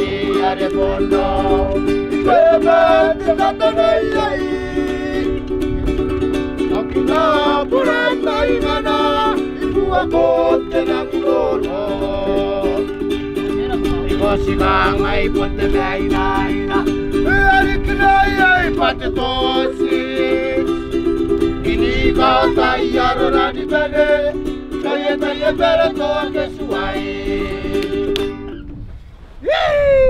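Ukulele strummed in steady chords with a voice singing a Kiribati island song over it; the music stops shortly before the end.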